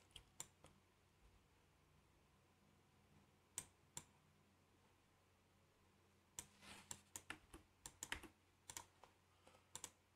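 Faint clicking at a computer while working in software. There are a few clicks at the start and a pair about four seconds in, then a quicker, irregular run of clicks from about six seconds in to near the end.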